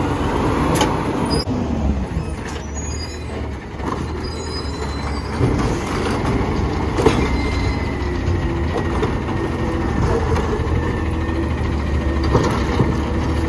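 McNeilus ZR automated side-loader garbage truck emptying a wheeled trash cart: the diesel engine runs under load driving the hydraulic arm, with a steady whine and several clunks and bangs as the cart is lifted, shaken out over the hopper and set back down.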